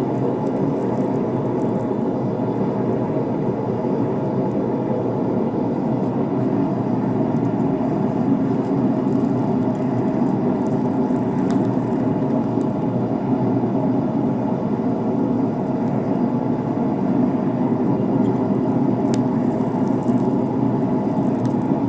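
Forge running with a steady, even rushing noise, with a few faint ticks over it.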